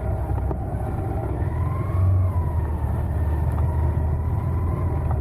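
Yamaha XSR155's single-cylinder engine running under way, its pitch drifting gently up and down with the throttle over a steady low rumble.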